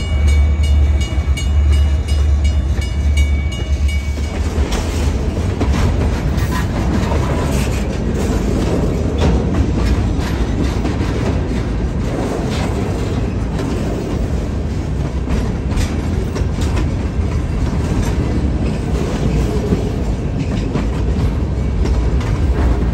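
Freight train cars (covered hoppers, then centerbeam flatcars) rolling past close by: a heavy low rumble of wheels on rail with irregular clicking and clacking over the rail joints. A steady high tone sounds for the first four seconds or so, then stops.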